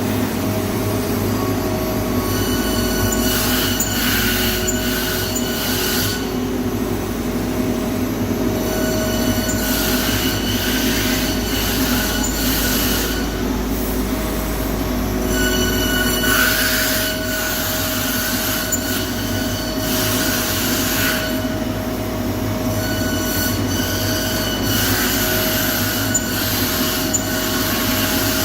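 High-speed spindle of a CNC nesting router running with a steady whine over a constant machine hum. Four longer stretches of louder hissing noise rise and fall as the bit cuts through panel.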